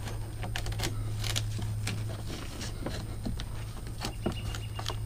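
Light, irregular clicks and rustles of a nylon Velcro strap and plastic windshield clip being handled and fed through, over a steady low hum.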